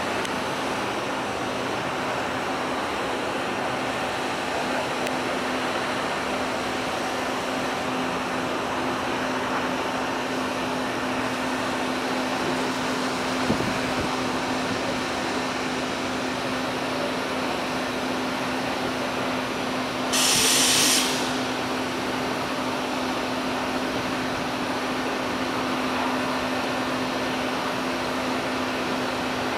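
Steady mechanical hum with a low steady tone running under it. A faint click comes about halfway through, and a short hiss lasting about a second comes about two-thirds of the way through.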